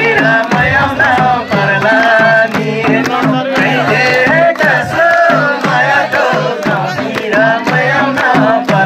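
Nepali dohori folk music: a hand drum keeps a steady repeating rhythm under a wavering melody line.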